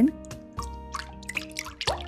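Milk pouring in a thin stream from a carton into a glass measuring jug, a soft trickle and splashing, under steady background music.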